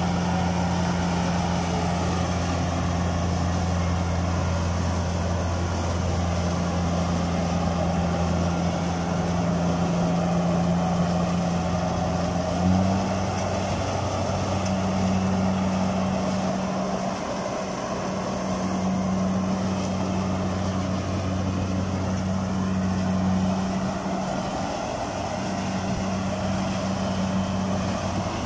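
Kubota DC-68G combine harvester's diesel engine running steadily under load as the tracked machine crawls through deep rice-field mud. About halfway through, the engine note steps up slightly and then wavers.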